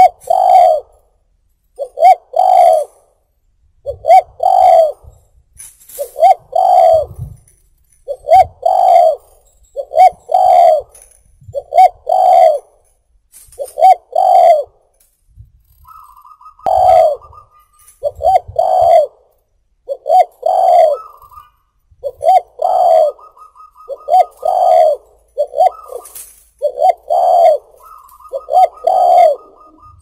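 Spotted dove (tekukur) cooing over and over, a short phrase of a few coos about every two seconds.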